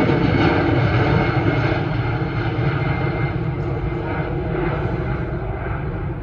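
Twin-engine jet airliner flying away overhead, its engines a loud, steady rumble that slowly fades as it draws off.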